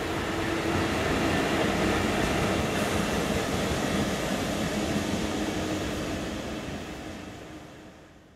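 Class 66 diesel locomotive passing with a freight train: engine drone over rumbling wheel noise, loudest a couple of seconds in, then dying away before cutting off suddenly at the end.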